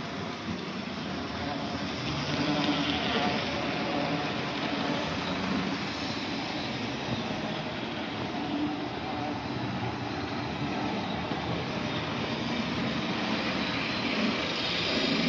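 HO scale model Amtrak passenger train running on the layout's track: a steady hum of the locomotive's electric motor and the whirr and rattle of the wheels on the rails. It grows louder about two seconds in and again near the end as the train passes close by.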